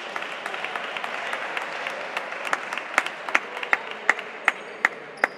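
Crowd applause. About halfway through it settles into sharp, evenly spaced claps, about two and a half a second, as the general clapping thins out.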